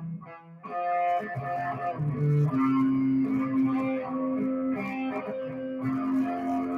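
Electric guitar played live: a brief gap just after the start, then a run of single notes and one note held for about four seconds.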